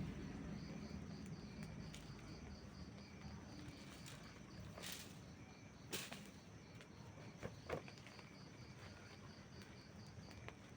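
Faint campfire burning with a soft hiss and a few sharp crackles and pops, the loudest past the middle. Crickets chirp steadily behind it, about three chirps a second.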